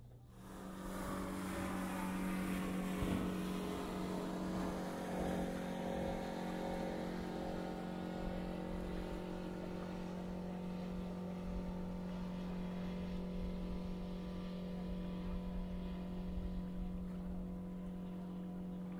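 Boat engine running at a steady pitch, an unchanging hum over a rushing noise of water and wind.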